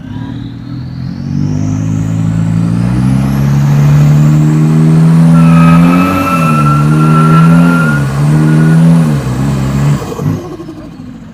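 Toyota Fortuner GR's turbo-diesel engine revved hard: the revs build over several seconds and are held high, dip and recover three times, then drop off near the end, with a high whistle climbing as the revs build.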